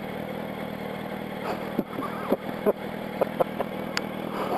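Yamaha R1's inline-four engine idling at a standstill. A run of short clicks and knocks comes through the middle, and one sharp click comes near the end.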